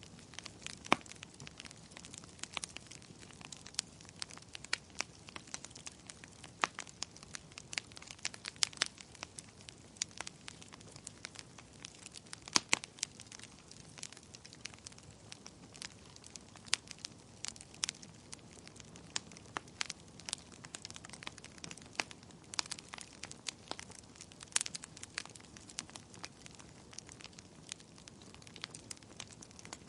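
Fire crackling: irregular sharp pops and snaps of varying loudness over a faint steady hiss.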